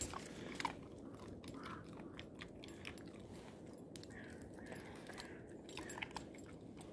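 A dog crunching and chewing nuts it has picked up off the road: faint, irregular crunches and clicks.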